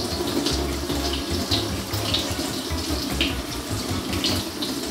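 Kitchen tap running into the sink while vegetables are rinsed under the stream; the water starts at the outset and eases off near the end.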